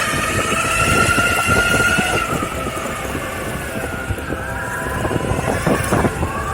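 Ownboard Carbon AT electric skateboard's twin motors whining under way, the pitch drifting up and down a little with speed, over a rough rumble of the tyres rolling.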